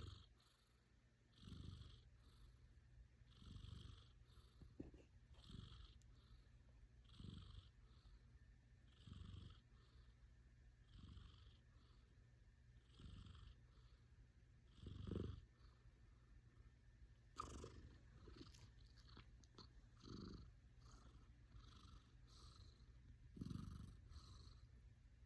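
A sleeping domestic cat snoring softly, one breath roughly every two seconds.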